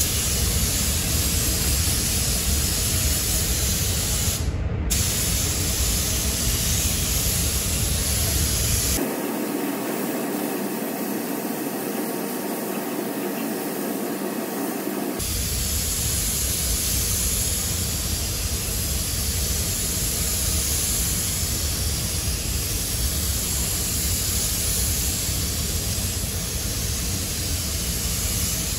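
Gravity-feed compressed-air spray gun hissing steadily as it sprays acrylic paint onto a truck cab. For several seconds in the middle the low rumble underneath drops out.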